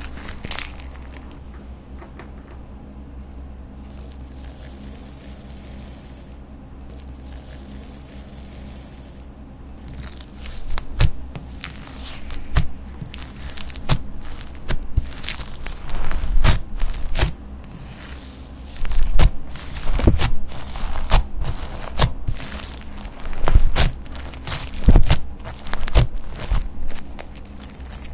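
Clear slime full of chunky glitter being squeezed, pressed and poked by hand, giving wet crackles and sharp popping clicks. The first few seconds are soft, then from about ten seconds in the pops come thick and loud.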